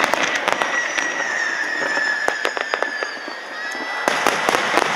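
Fireworks going off: a rapid run of sharp bangs and cracks, a long high whistle slowly falling in pitch through the middle, then another flurry of bangs and crackles about four seconds in as a large glittering burst opens.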